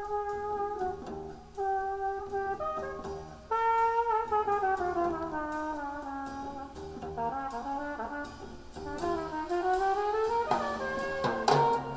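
Music played through a pair of Pioneer CS-51 bookshelf speakers, their tweeter crossover lowered by two added oil capacitors. A single lead melody slides smoothly between held notes over a soft accompaniment, and it swells louder near the end.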